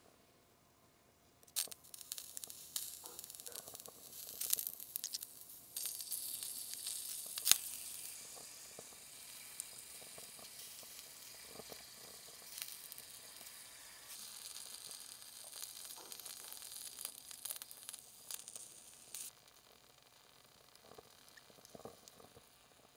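Small pieces of chicken sizzling in hot oil in a tiny miniature frying pan. The sizzle starts suddenly about a second and a half in as they drop into the pan, with light clicks and scrapes of a small spoon and fork against the pan, one sharp click about seven seconds in. It eases off well before the end.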